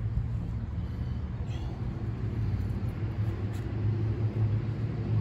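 Steady low rumble of a motor vehicle engine running, getting slightly louder in the second half.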